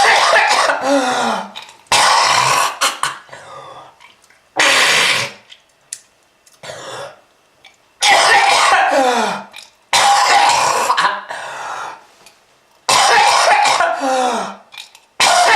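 A person coughing in repeated harsh fits, about seven in all, a couple of seconds apart. Each fit starts with a loud, sudden cough, drops in pitch, and trails off into smaller coughs.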